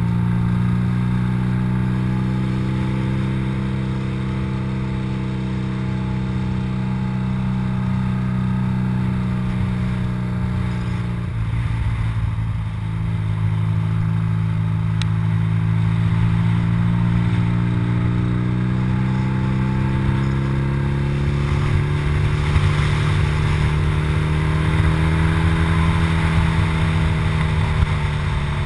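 BMW R80RT's air-cooled flat-twin engine running at road speed, with wind buffeting over it. The engine note drops and breaks briefly about eleven seconds in, then rises slowly over the next ten seconds.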